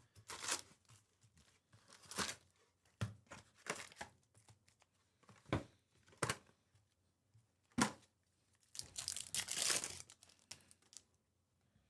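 Trading-card packs and their cardboard box handled at close range: scattered rustles and taps as the packs come out of the box. Then, about nine seconds in, a longer crinkling stretch as a foil card pack is torn open.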